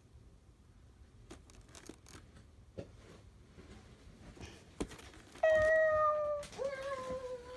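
Little Live Pets interactive kitten toy playing its electronic meow through its speaker: two drawn-out meows about five seconds in, each about a second long, the second a little lower. Before them only faint handling clicks.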